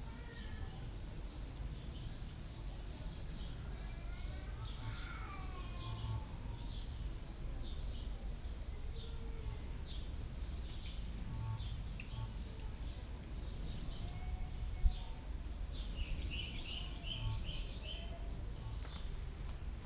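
Small birds chirping rapidly and repeatedly over a steady low rumble, with one sharp click about three quarters of the way through.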